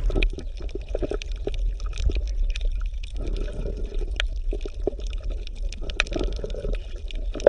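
Water gurgling and bubbling: a steady low rush with many small, irregular clicks and pops.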